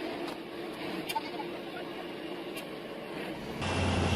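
Steady machinery engine noise with a few faint clicks. Near the end it cuts sharply to a louder, deeper engine drone.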